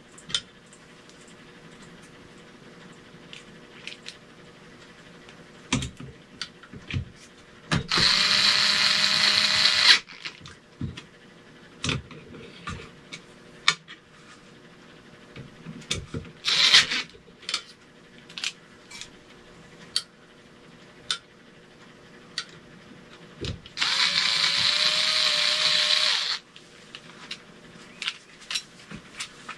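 Power drill driving screws in two steady runs of about two seconds each, with a brief third burst between them. Clicks and knocks of handling screws and parts come in the gaps.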